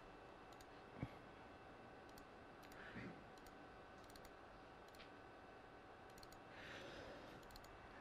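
Near silence with faint, scattered clicks from a computer being worked, and a soft knock about a second in.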